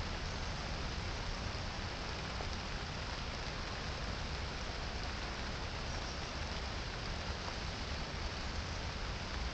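Steady rain falling on a puddled asphalt road and the surrounding trees.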